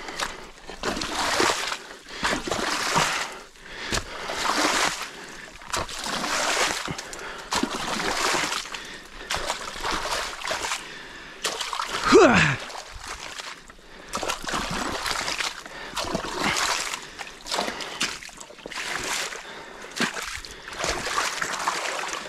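Legs in chest waders wading through creek water, a swishing splash with each stride about every one and a half seconds. About halfway through, a short falling vocal whoop, the loudest moment.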